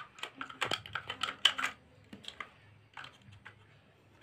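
Small plastic clicks and taps from a screwdriver working the screw of a toy RC car remote's plastic battery cover as the cover is loosened and lifted off. A quick run of clicks comes in the first two seconds, then a few scattered ones.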